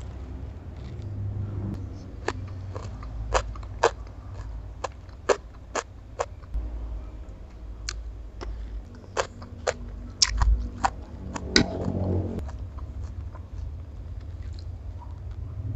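A person chewing and crunching a mouthful of stir-fried bean sprouts and crab roe, with many short sharp clicks that are thickest and loudest about ten to twelve seconds in.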